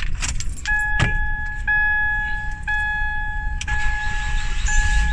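Ford Focus dashboard warning chime dinging steadily about once a second as the key is turned on, with a few sharp clicks near the start.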